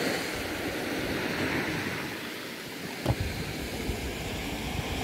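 Small sea waves breaking and washing up a pebbly shore, with wind on the microphone. A brief thump about three seconds in.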